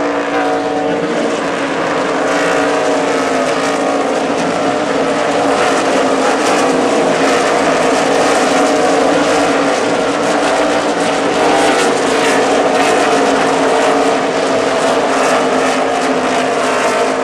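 Pack of NASCAR Nationwide Series stock cars with V8 engines running hard past the corner, several engines overlapping. Engine pitch falls in the first second, then the pack holds a loud, dense run of engine notes.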